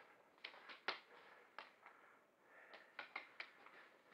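Near silence broken by a few faint sharp clicks and snaps over light rustling, bunched about a second in and again around three seconds in.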